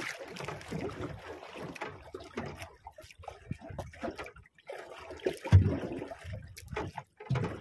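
Water sloshing and trickling against a small boat's hull, with irregular knocks and a loud thump a little past halfway, as a hand line is hauled in.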